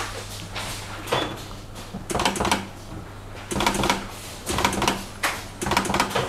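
Pneumatic battery spot welder firing repeatedly as metal connecting strips are welded onto a pack of cylindrical lithium cells. From about two seconds in there is a short clatter of clicks with a brief hum roughly once a second, five times, over a steady low machine hum.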